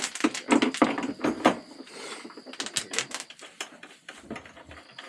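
Irregular clicks and knocks of hard plastic and metal parts being handled and set down while a kids' ride-on toy truck is assembled. The clicks are densest in the first couple of seconds, then come more sparsely.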